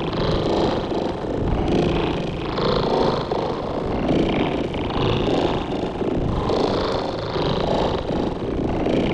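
Synthesized sci-fi sound effect: a continuous rough, grainy rumble that swells and eases every second or so.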